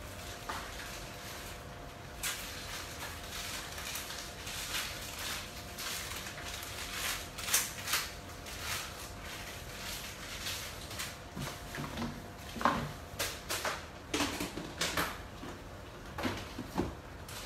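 Chicken pieces sizzling in a steel pot on a gas stove, a steady hiss with scattered crackles and pops, and a few louder knocks in the second half.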